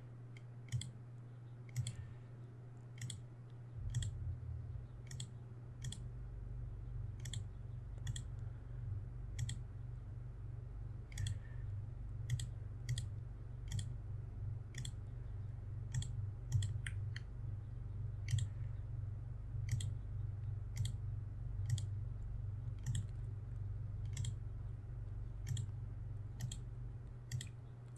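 Computer mouse button clicking about once a second, each click setting a point of a line spline being traced by hand, over a steady low hum.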